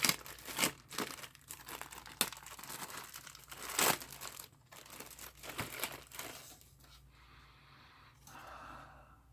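Plastic packaging crinkling and rustling in irregular crackles as the kit's circuit board is handled and unwrapped, with one louder crackle about four seconds in, then quieter handling toward the end.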